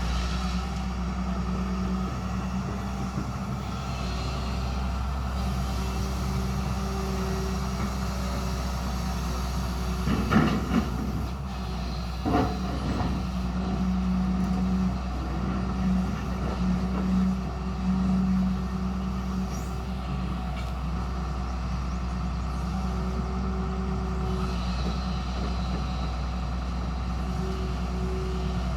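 Hyundai excavator's diesel engine running steadily, its note swelling louder in several stretches under working load. Two sharp knocks come about ten and twelve seconds in.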